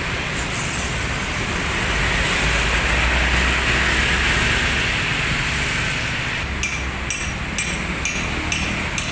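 Street traffic with a bus driving past, its low engine rumble swelling and fading over a few seconds. Near the end, a run of short high beeps, about two a second.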